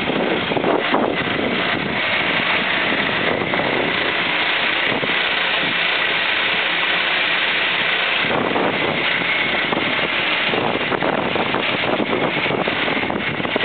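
1929 Ford Model A's four-cylinder flathead engine idling steadily, heard close to the open engine bay.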